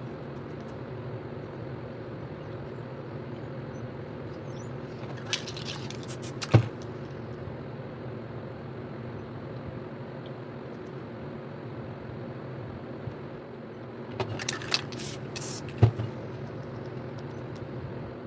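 Spray paint cans hissing in short bursts, in two groups about nine seconds apart, each group ending with a sharp knock, over a steady low hum.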